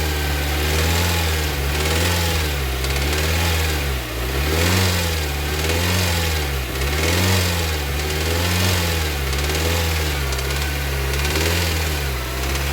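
Kia Sportage 2.0 16-valve four-cylinder engine running, its speed rising and falling about every second and a bit as it is revved lightly over and over, carrying an engine noise. The noise was traced to a worn connecting-rod bearing on the second cylinder, which had lost a lot of material.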